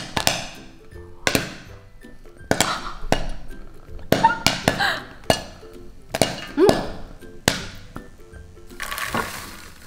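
Popcorn kernels still popping in a steel pot on the stove: single sharp pops, each ringing briefly, roughly once a second. Background music plays underneath, and a short rush of noise comes near the end.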